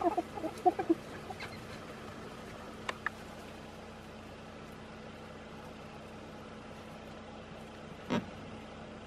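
A rapid run of short, pitched animal calls in the first second, over a faint steady hum. Then a single thump about eight seconds in.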